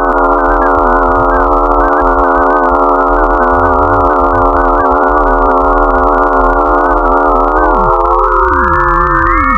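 Eerie electronic sound of a space-data sonification: a dense chord of many steady, slightly wavering pure tones that starts abruptly. Near the end some of the lower tones slide down and fade out while others rise in pitch.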